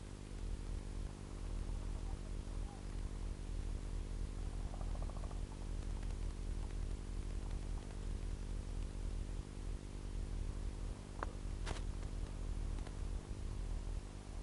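Steady electrical hum and hiss from the recording camera, with two sharp clicks about half a second apart near the end.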